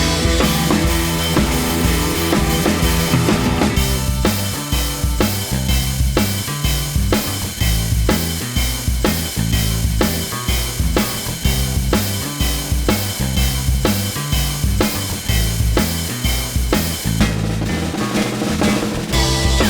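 Background music with a steady drum-kit beat: bass drum and snare.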